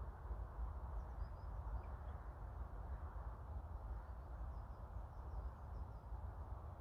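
Steady wind rumble on a clip-on microphone outdoors, with a few faint high bird chirps about a second in and again around the fifth second.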